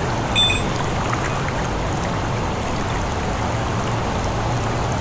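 Mountain stream running steadily, an even rush of water. About half a second in there is a brief high ringing ting.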